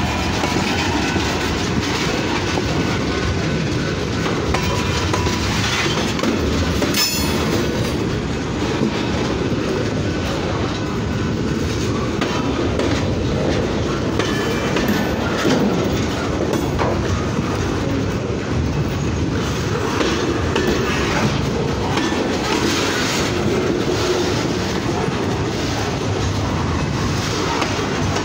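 Freight train cars rolling past at close range: a steady rumble of steel wheels on rail, with irregular clicks over the rail joints.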